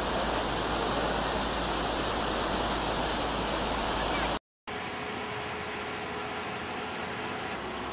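Fast mountain river rushing over rocks, a steady wash of whitewater noise. It cuts out completely for a moment about halfway, then carries on a little thinner.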